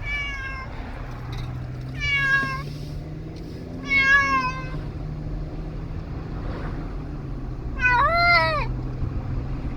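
Domestic cat meowing four times, long wailing meows that sound like a baby, its distress at riding in the car. Under the meows runs the steady low drone of the car.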